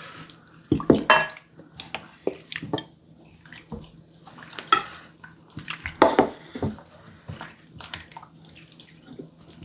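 Cold broth of acorn-jelly soup being ladled into a bowl: liquid splashing and dripping, with several sharp clinks of utensils against the dishes.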